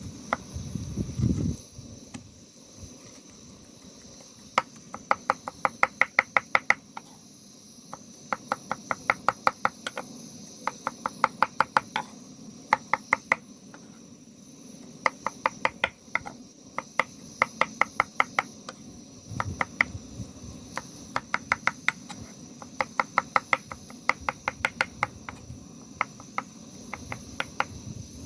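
Knife chopping quickly on a cutting board, in runs of rapid, even strokes about seven a second, each run lasting one to two seconds, separated by short pauses. A steady insect drone sounds underneath.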